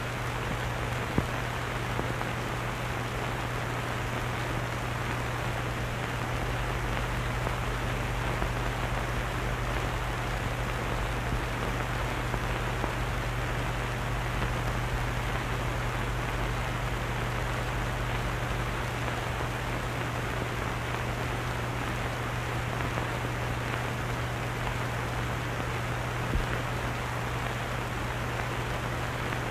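Steady hiss with a low hum underneath and a couple of small clicks: the background noise of an old optical film soundtrack.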